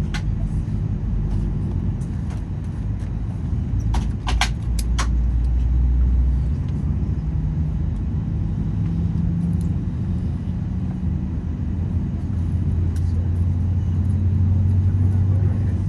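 Cabin noise inside an Airbus A319: a low, steady rumble from the CFM56 engines and airframe at low power, its low hum stepping slightly in pitch now and then. A few sharp clicks about four to five seconds in.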